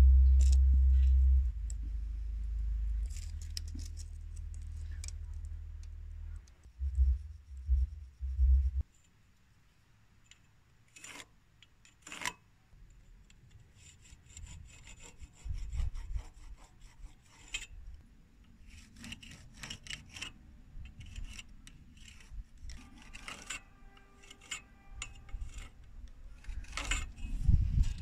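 Carpenter's pencil scratching lines across the rough sawn end grain of a log, drawn in short strokes against a steel ruler, with a few sharp clicks of the measuring tools. A low rumble fills the first several seconds.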